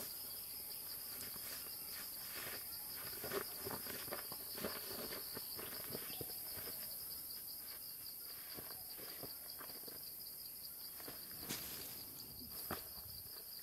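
Faint steady chirring of insects in dry woodland, over footsteps rustling and crunching through dry leaf litter. Near the end, a dull thump as a person falls onto the ground.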